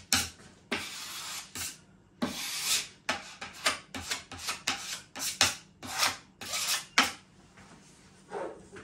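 A spatula scraping back and forth over a panel, spreading Bostik contact adhesive: a run of short scraping strokes that quicken after a few seconds and stop shortly before the end.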